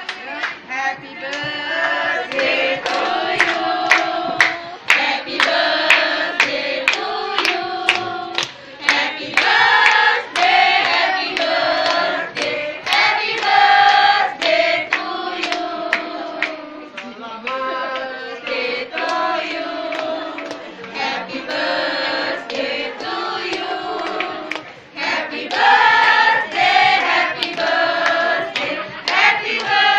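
A group of students singing together in unison, with steady hand claps keeping time to the song.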